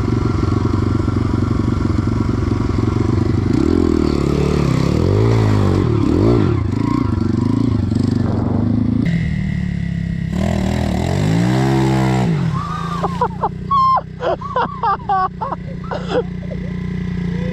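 Small dirt-bike engines: one idling steadily while the other revs up and down as it pushes through shallow stream water. Near the end comes a run of short, loud, wavering bursts.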